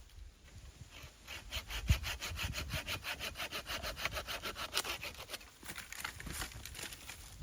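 A hand saw cutting through wood with quick, even strokes, about five a second, which turn irregular and sparser after about five seconds. There is a dull thump about two seconds in.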